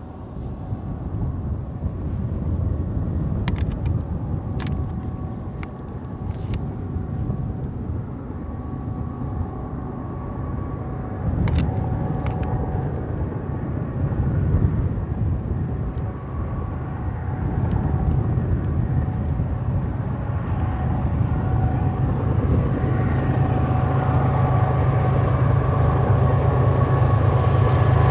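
Diesel-electric locomotives of an approaching double-stack freight train: a steady low engine rumble with a faint whine, growing steadily louder as the train nears.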